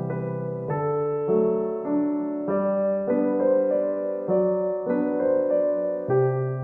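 Background piano music: a gentle, slow run of held notes and chords.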